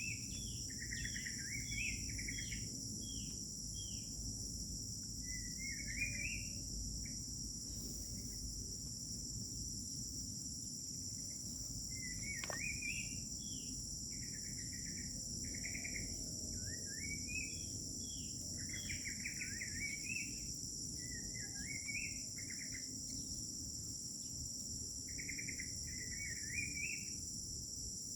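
Crickets trilling in a steady, continuous high chorus, while a songbird sings short warbled phrases again and again, a second or two apart. A low background rumble runs underneath.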